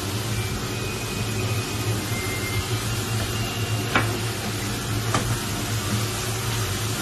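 Steady hiss and low hum of cooking on a stove, with food sizzling, and two sharp knocks about four and five seconds in.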